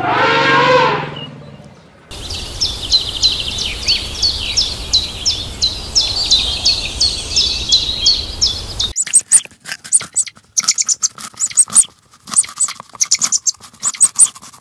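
An elephant's trumpet call that bends in pitch and fades out within the first second or so. Then a high chirp repeats about three times a second over a low, steady rain-like noise. From about nine seconds there are irregular sharp clicks while porcupines chew fruit.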